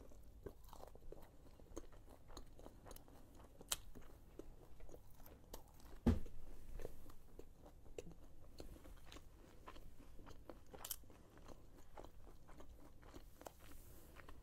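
Close-up chewing of crunchy breaded fried shrimp: faint, irregular crunches and small mouth clicks. A louder dull thump comes about six seconds in.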